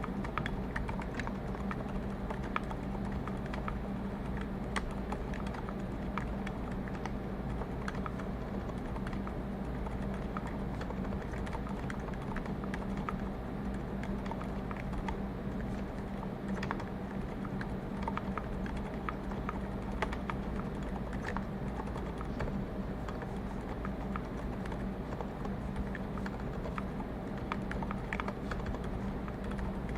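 Continuous typing on a Klippe mechanical keyboard fitted with MX Zilents silent tactile switches (lubed with Krytox 1514, filmed, 68g springs), GMK keycaps and a brass plate: quiet, irregular keystrokes. A steady low hum of room noise runs underneath.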